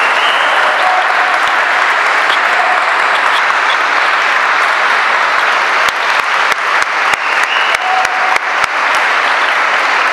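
Audience applauding. About six seconds in, the clapping falls into a steady rhythm in unison, about three claps a second.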